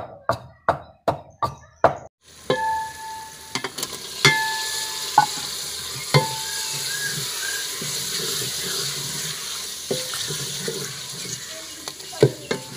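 A wooden pestle pounds in a clay mortar, about three strokes a second. After a cut, chicken pieces sizzle in masala in an aluminium pot, just added to the tempered spices. A metal spoon stirs them, clanking against the pot with a short ringing tone a few times.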